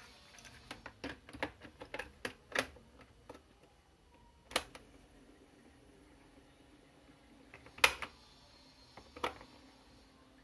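Light plastic clicks and clacks as a cassette is handled and slotted into the tape deck of a Sunca S7-288B rechargeable lantern radio-cassette player, then three separate sharper mechanical clicks from the deck's door and piano-key buttons, the loudest about eight seconds in.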